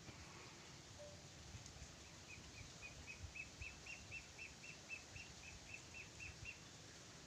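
A bird calling a rapid series of short, repeated notes, about four a second, starting about two seconds in and lasting some four seconds.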